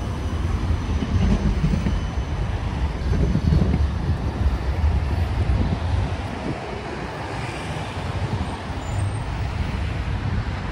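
Steady city street traffic noise from cars and trams running on the road alongside, a constant low rumble that eases a little in the second half.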